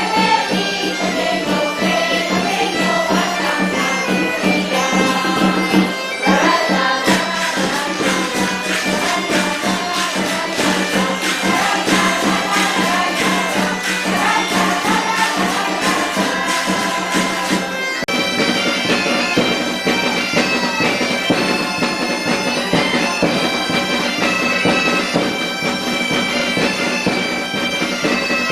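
Bagpipe music over a steady drone. The music changes abruptly about six seconds in, and again near eighteen seconds, where the drone drops out.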